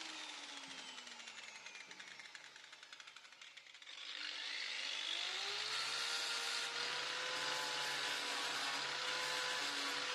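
A power tool's motor winding down, its whine falling in pitch and fading, then switched on again about four seconds in, rising in pitch and settling into a steady high whine as it runs.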